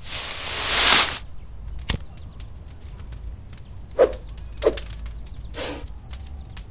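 Handling noises while working: a rustling swish, a sharp click about two seconds in, then three short dull knocks about a second apart.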